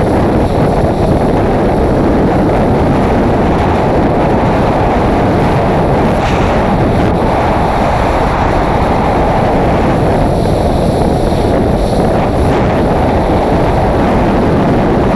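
Loud, steady rush of freefall wind on a skydiving camera's microphone, strongest in the low range.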